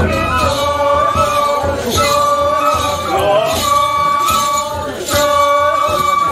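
Hana matsuri festival music: a bamboo flute playing long held notes in repeating phrases over steady beats of a large taiko barrel drum.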